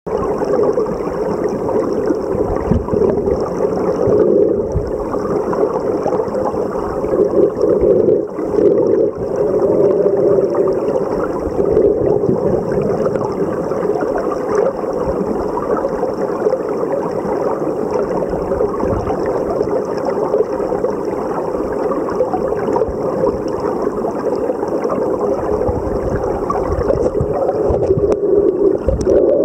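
Flowing river water heard underwater through the camera housing: a steady, dull rushing that barely changes.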